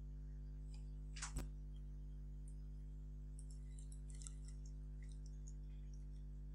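Faint computer keyboard typing, a few scattered key clicks with one louder click about a second in, over a steady low electrical hum.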